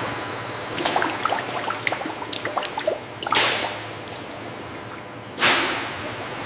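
Liquid dripping and splashing in many quick small drops, with two sharp whooshes about two seconds apart.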